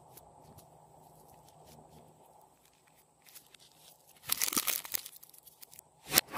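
Plastic packet of modelling clay crinkling and crackling as it is handled: a burst of crinkling about four seconds in and a sharper crackle near the end, after a few seconds of faint soft handling sounds.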